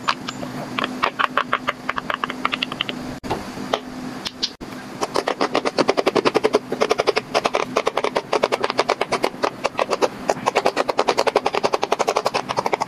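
Silicone pop-it fidget toy bubbles pressed flat by fingers in quick succession: a fast run of popping clicks, about ten a second, with a short break about three to four and a half seconds in.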